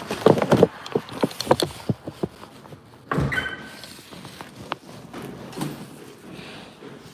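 Footsteps and knocks on a hard floor, then about three seconds in a door thudding with a short squeak, followed by a few scattered steps.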